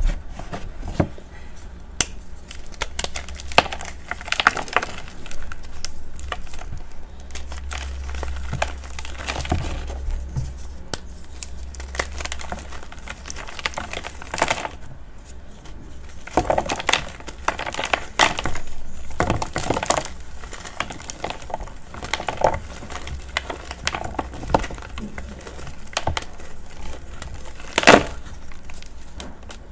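Reformed gym chalk (magnesium carbonate) crushed and crumbled by hand: a dense run of dry crunches as the blocks break apart, with one sharp crack near the end.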